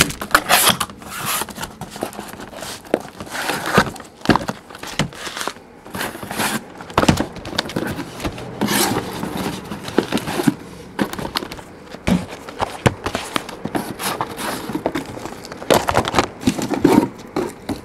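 Sealed cardboard hobby boxes of trading cards being lifted out of a shipping case and set down on a table one after another: irregular knocks and scrapes of cardboard on cardboard and on the tabletop.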